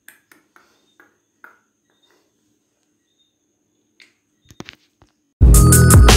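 A few faint clicks and taps over near quiet, then loud electronic dance music with a heavy bass beat cuts in suddenly about five seconds in.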